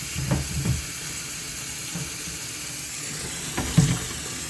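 Water splashing in a filled laundry sink as a flashlight is dunked under, a few short splashes just after the start and a louder one near the end, over a steady hiss.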